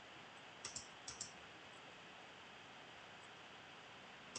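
Near silence with a faint steady hiss, broken by soft double clicks of a computer mouse button, each pressed and released: two less than a second apart about a second in, and one more right at the end.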